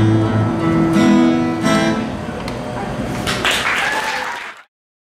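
Acoustic guitar: a few last strummed chords that then ring out and fade. A little after three seconds in, a short burst of applause starts, and it is cut off abruptly near the end.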